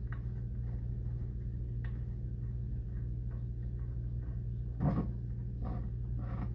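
Small clicks and scrapes of an Allen key turning the steel cover bolts on a boiler heat exchanger, over a steady low hum. One louder knock comes about five seconds in, followed by a quick run of ticks.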